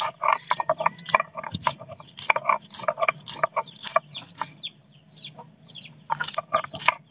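Green and dried chillies being crushed on a sil-batta, a stone grinding slab worked with a hand-held stone roller: quick, uneven rasping strokes of stone on stone, several a second. A few short high chirps come in about five seconds in.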